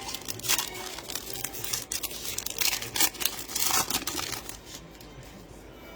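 Plastic wrapping of sports trading card packs being torn open and crinkled by hand, in a quick run of rough rustles that is loudest about three to four seconds in and dies down near the end.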